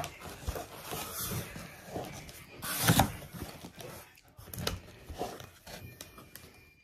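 Cardboard shipping box being handled: its flaps pushed and the boxed kits inside shifted, giving a few knocks and scuffs, the loudest about three seconds in.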